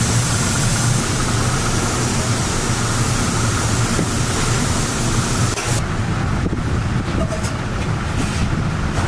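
Steady low rumble with an even hiss over it. The hiss drops away about six seconds in, leaving the rumble and a few faint clicks.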